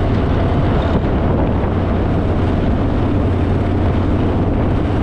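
Heavy wind rush on the microphone over a steady, loud low engine drone, as heard while travelling at speed.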